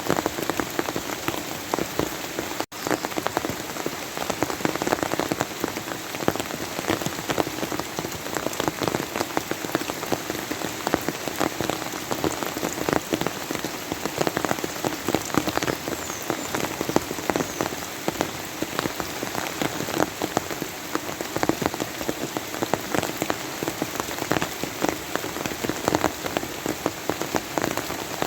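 Steady rain falling, thick with close individual drop impacts. About three seconds in, the sound drops out for an instant and then carries on.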